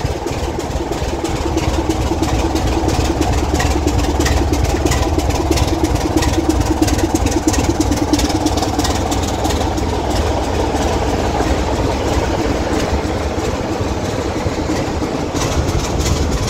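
BR Class 24 diesel locomotive moving slowly past at close range, its Sulzer six-cylinder diesel engine running with a steady low drone and a rattle over it. The sound is a little louder in the middle, as the engine-room grilles go by.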